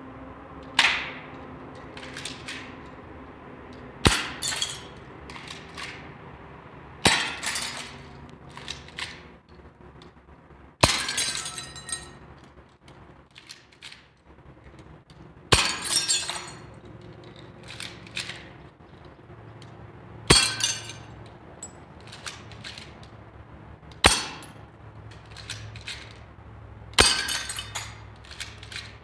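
Toy pistol fired about eight times, three to five seconds apart; each sharp crack is followed by a brief high clinking rattle of brittle pieces breaking and scattering.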